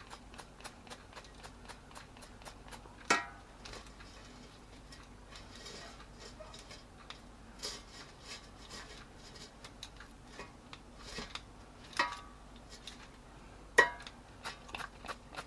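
Quiet kitchen handling of an air fryer basket of curly fries being sprayed with oil: a few sharp knocks and short soft hisses of spray, over a fast, even ticking.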